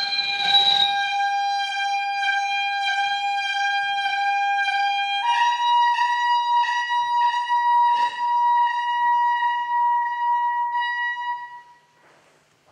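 Soprano saxophone holding long, steady notes rich in overtones: one pitch, then a step up to a higher note about five seconds in, with a slight pulsing waver. It fades out about a second before the end.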